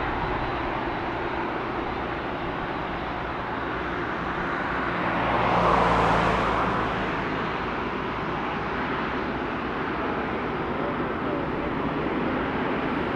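Boeing 747-8 freighter's GEnx jet engines running, a steady rumble with a louder swell about six seconds in.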